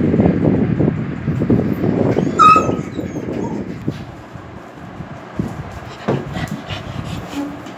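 A group of German Shepherd dogs jostling and scuffling close by, with one short high whimper about two and a half seconds in. After it the dogs are quieter, with scattered light clicks.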